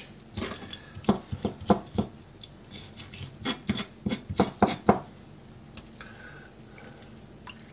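Kitchen knife chopping hatahata (sandfish) on a plastic cutting board: a run of sharp, irregular knocks of the blade striking the board for about five seconds, then quieter.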